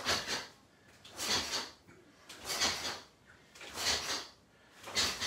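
Rhythmic swishes of karate uniforms and sharp breaths as two karateka pull back and punch. There is one burst about every 1.3 seconds, five in all.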